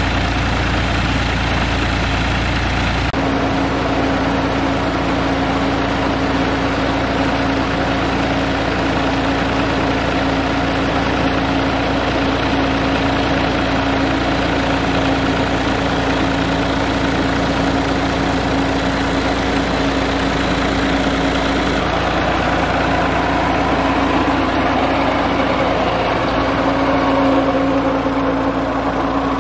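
New Holland Ghazi tractor's diesel engine running steadily, turning a shaft and belt pulleys that drive two tubewell pumps. Its tone changes abruptly about three seconds in and again after about twenty seconds.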